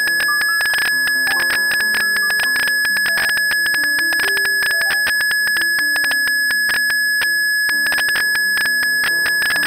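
Blüthner grand piano played four hands: a stream of rapid repeated notes over a shifting lower melody, with a steady high ringing tone above that drops out briefly a little past seven seconds.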